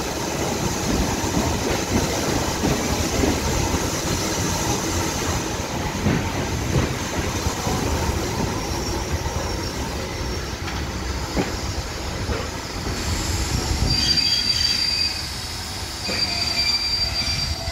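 Railway passenger coach rolling slowly along the track, wheels rumbling on the rails with a few sharp clicks over rail joints. From about fourteen seconds in, a thin high wheel squeal sets in over the running noise.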